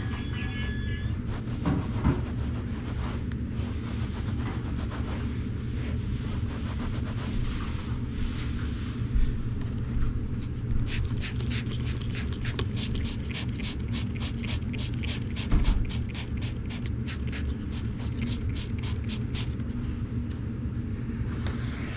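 A steady low mechanical rumble, with a fast run of regular ticks, about four a second, starting about eleven seconds in and stopping near the end.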